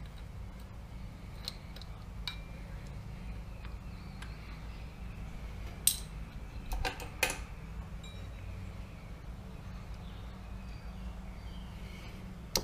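Small metal engine parts clinking as they are handled and set down on the concrete floor, with a few sharp clinks about six to seven seconds in and another near the end, over a steady low hum.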